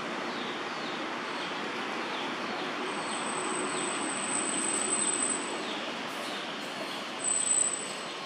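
Outdoor ambience: a steady rushing noise with faint repeated chirps, and a thin high-pitched tone that comes in twice, most strongly near the end.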